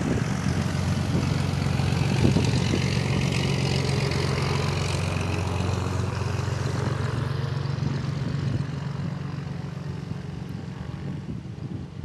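Propeller airplane engine running close by, loudest about two seconds in and slowly fading away toward the end.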